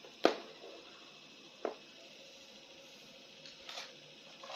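Handling noise from a plastic toy action figure: a sharp click about a quarter second in, a smaller click over a second later, and a brief faint rustle near the end, against quiet room tone.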